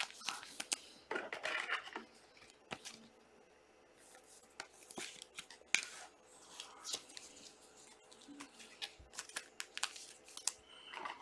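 Trading-card packs and cards being handled: on-and-off rustling and crinkling of pack wrappers, with soft clicks of cards.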